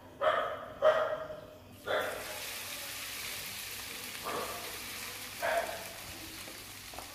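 Marinated chicken pieces sliding into hot oil in a nonstick kadai, setting off a steady frying sizzle from about two seconds in. A few short, sharp sounds come just before the sizzle, and a couple more during it.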